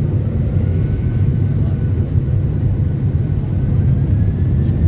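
Boeing 767-300's twin jet engines running up for takeoff, heard inside the cabin as a steady low rumble that grows slightly louder, with a faint rising whine.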